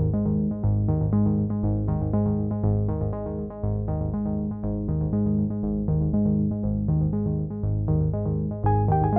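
Background music: synthesizer and keyboard notes over a steady repeating bass line, with a higher melody coming in near the end.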